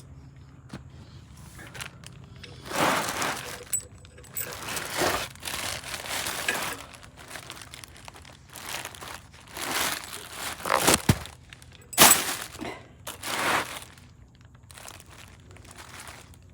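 Worn Subaru rear wheel hub bearing spun by hand in a series of short gritty grinding bursts, with a couple of sharp clicks about two-thirds of the way through. The bearing is tight and rough, the source of the rear hub noise.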